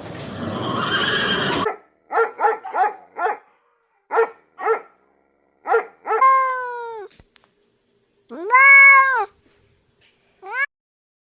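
An animal calling. A rushing noise cuts off about a second and a half in, then come short, high, pitched yelps in quick groups, then two longer calls, the first falling in pitch and the second rising then falling, and a short rising call near the end.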